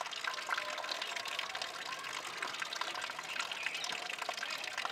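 Thin stream of water running from an open outdoor metal tap, a steady trickle with many small splashes.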